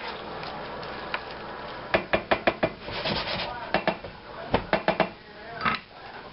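Wooden spatula stirring and scraping saucy ground beef in a skillet, with runs of quick, sharp knocks of wood against the pan: about six about two seconds in, more around four to five seconds, and a last one near the end.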